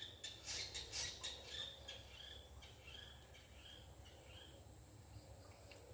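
Faint outdoor ambience: small birds chirping in short calls through the first half, over a steady high-pitched insect drone. A few soft clicks come about a second in.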